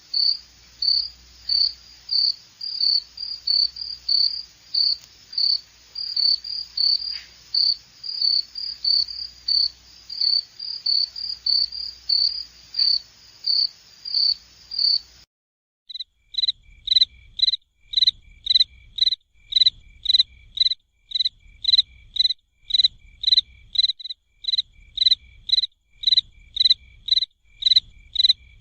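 Crickets chirping in a steady rhythm of about two chirps a second. About halfway through the sound breaks off briefly and resumes as a somewhat lower-pitched chirping at a similar rate.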